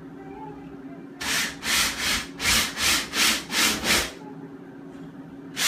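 Hand saw cutting with quick back-and-forth strokes: a run of about eight strokes, roughly three a second, then a pause and another stroke near the end.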